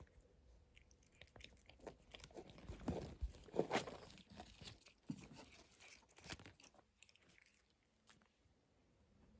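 A cat chewing and biting cat grass: faint, irregular crunching chomps, loudest a few seconds in and trailing off well before the end.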